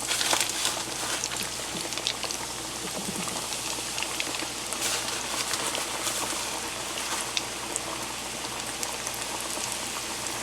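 Whiting frying in hot oil: a steady sizzle with crackles, a little louder about half a second in.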